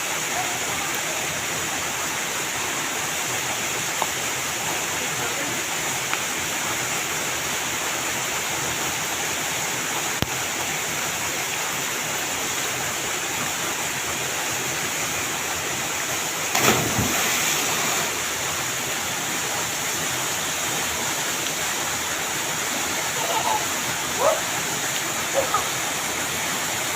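A waterfall's steady rushing water, a constant even roar. About two-thirds of the way through there is a brief louder burst of noise lasting a second or so.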